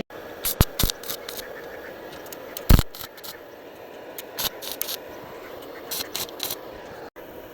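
Scattered scrapes and clicks of metal being handled, with one sharp knock a little under three seconds in.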